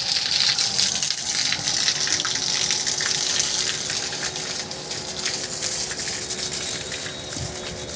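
Water gushing steadily from a tap, fading gradually over the last few seconds.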